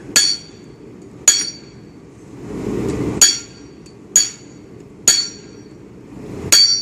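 Blacksmith's hammer striking steel on an anvil while forging a knife, six separate blows at an uneven pace of roughly one a second, each with a bright metallic ring that dies away quickly.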